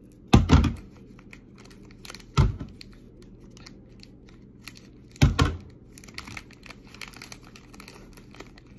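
Trading-card pack wrapper being cut open with scissors and crinkling: three louder cuts, about two to three seconds apart, with light crinkling between.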